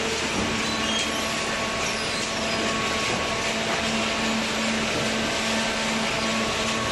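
Paper and card baler machine running with a steady mechanical hum and a faint constant tone.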